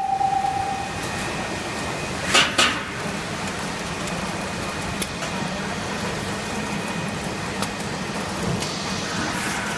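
Snack pellet frying line running with a steady mechanical hum. A high steady tone stops about a second in, and two short hissing bursts come about two and a half seconds in.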